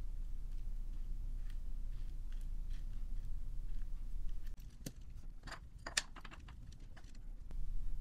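A small LEGO Technic telehandler model being handled: faint plastic clicks as its boom is worked, then a cluster of sharper plastic clicks and knocks about five seconds in as the model is set down on a wooden floor.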